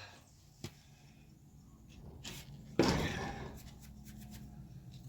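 A light click, then one loud sudden knock a little under three seconds in that rings on briefly as it dies away, over a low steady hum.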